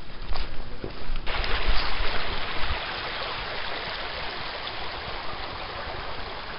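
Steady rushing noise of moving water, with low wind buffeting on the microphone during the first few seconds. The hiss jumps suddenly brighter and louder about a second in.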